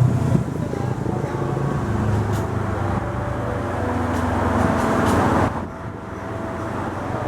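Street traffic, with a large vehicle's engine running close by; the rumble eases suddenly about five and a half seconds in.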